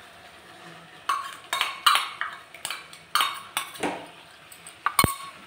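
Steel spoon scraping and clinking against a stainless-steel bowl, a quick run of ringing metal scrapes as spice paste is emptied out of it into the wok, ending in one sharp knock.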